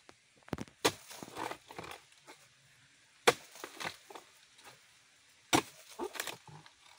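Pole chisel chopping into oil palm frond stalks during a harvest. It makes sharp woody strikes: three hard ones, about a second, three seconds and five and a half seconds in, with lighter knocks and rustling between.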